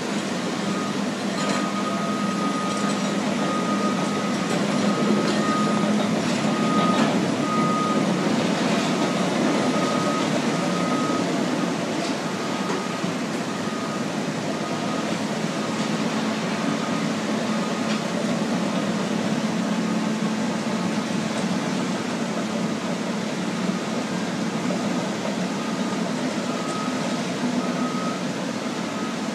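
Diesel bulldozers and loaders running as they spread sand on the beach, a steady engine hum, with a backup alarm beeping about once a second that fades in the middle and comes back clearly near the end.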